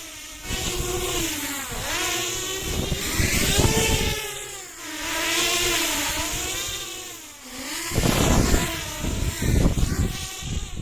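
10-inch FPV drone's motors and propellers whining under a 1.65 kg load, the pitch rising and falling again and again as it flies back and forth. From about eight seconds in, a louder, rough rushing noise with a low rumble.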